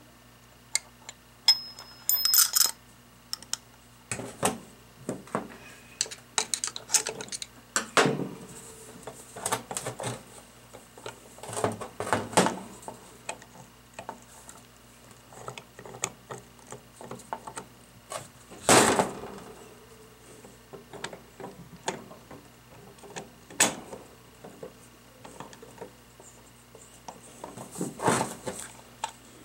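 Irregular clicks, clinks and knocks of metal parts being handled as a Hydro-Gear hydraulic pump's piston cylinder block is worked onto its splined shaft and the aluminium housing is turned over on a metal bench. Several louder knocks stand out, the loudest a little past the middle.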